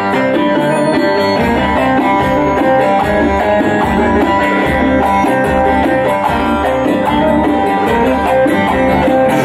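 Bağlama (long-necked Turkish saz) playing a quick plucked instrumental melody with a band accompanying. A steady low bass beat comes in about a second and a half in.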